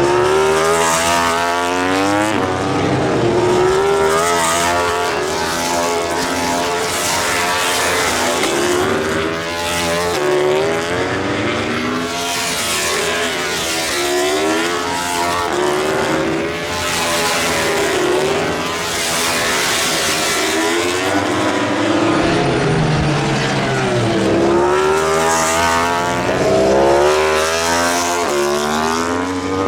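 Several MotoGP four-cylinder racing motorcycles running hard past the track, their engine notes repeatedly climbing in pitch and dropping back as one bike after another goes by, several overlapping at once.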